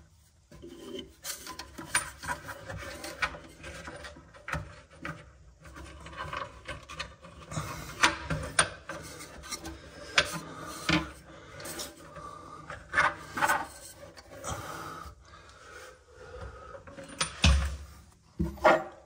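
Plastic sink waste trap and its compression nut scraping, rubbing and clicking as they are handled and twisted onto the basin's threaded waste outlet, in irregular bursts. A dull thump near the end.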